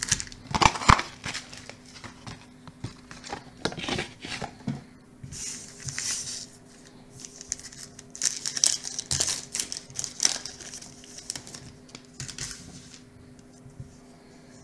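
A baseball-card pack's wrapper crinkling and tearing as the pack is opened, in several rustling bursts. A few sharp knocks from handling the cardboard blaster box come about a second in, and quieter card handling follows near the end.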